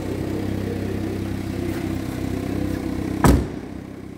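A car engine idling with a steady hum, then a Smart Fortwo door shut with one loud thud about three seconds in, after which the hum sounds quieter.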